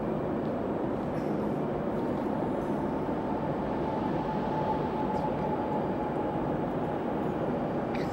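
Steady rumble of a commuter train approaching unseen through the tunnel, with a faint high hum that grows a little louder around the middle.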